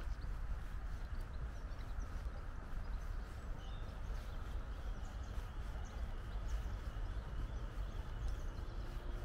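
Footsteps walking at an even pace on a tarmac path, over a steady low outdoor rumble, with a few faint bird chirps.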